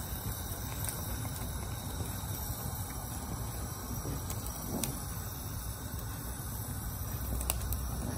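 Gas stove burner running with a steady low rushing noise, with a few faint clicks.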